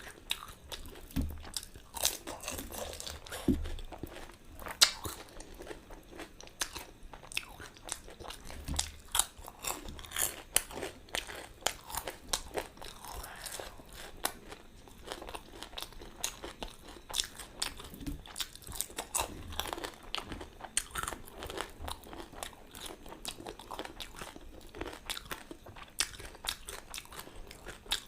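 Close-up eating of pani puri: the crisp hollow puris crunching between the teeth and being chewed, a rapid irregular run of crackly crunches with a few dull low thumps.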